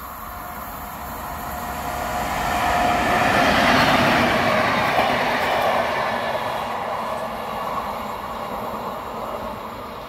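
A train passing on the tracks, its wheel and rail noise swelling to loudest about four seconds in and then slowly fading away.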